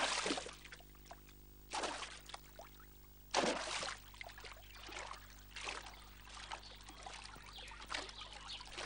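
Water splashing as boys plunge into a river and swim: three loud splashes in the first four seconds or so, then lighter, continuous splashing.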